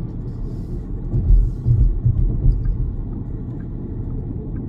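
Road noise inside the cabin of an XPeng G6 electric SUV on the highway: a steady low rumble of tyres on the road surface, with a louder stretch of low thumps about a second in.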